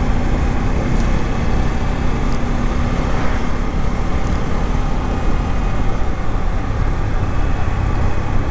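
Bajaj Pulsar N250's single-cylinder engine running as the motorcycle rides along, under a steady low rumble of wind and road noise. A steady engine tone fades about six seconds in.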